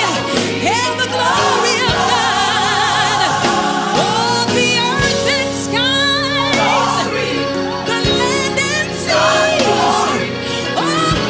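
Gospel choir singing with instrumental accompaniment. The voices hold wavering notes and slide between pitches, over a low beat that falls about every three seconds.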